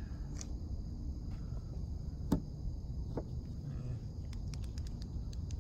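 Steady high chirring of night insects over a low rumble, with one sharp click about two seconds in and a few faint ticks near the end.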